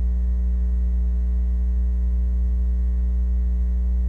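Steady low electrical mains hum, with fainter steady overtones above it.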